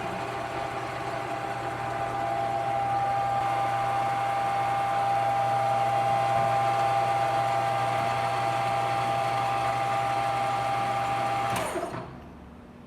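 Nardini Mascote MS1640 engine lathe spindle running at about 1000 RPM, a steady mechanical run with a clear gear whine over a low hum. Near the end it is braked and stops abruptly.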